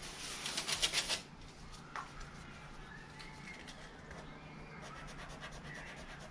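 Sandpaper rubbed by hand over the painted aluminium boot lid of a Rover P4 in quick back-and-forth strokes, rasping off old paint and sticker residue. The strokes are fast and loudest for about the first second, pause, then start again more faintly about five seconds in.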